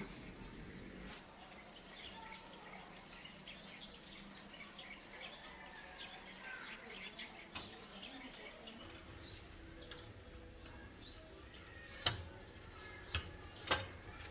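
Birds chirping outdoors, with a steady high-pitched whine setting in about a second in. Near the end come a few sharp clicks and knocks as the louvered window's slats and frame are handled.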